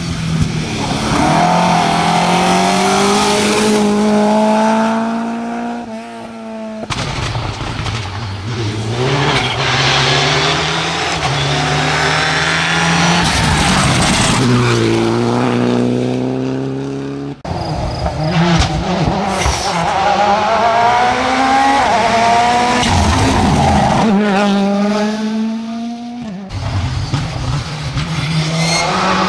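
Rally cars driven hard one after another through a tarmac bend. Their engines rev up and drop in pitch through gear changes as they pass. The sound breaks off abruptly from one car to the next three times.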